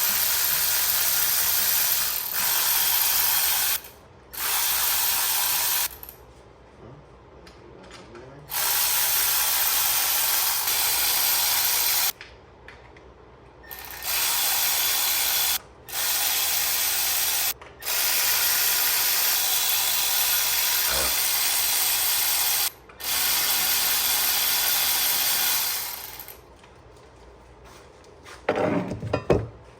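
Handheld cordless power tool with a 10 mm socket running in repeated bursts of two to five seconds, spinning out the valve cover bolts one after another on a Mazda Miata engine. A brief clatter near the end.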